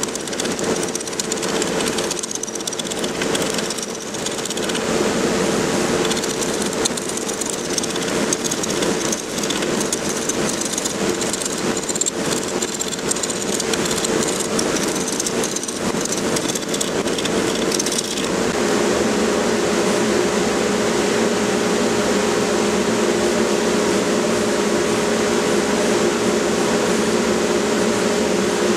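Wood lathe running with a steady hum while a turning tool cuts the spinning pecan blank, rough-turning it round with an uneven, scratchy cutting noise. About two-thirds of the way in the cutting stops and only the lathe's hum runs on.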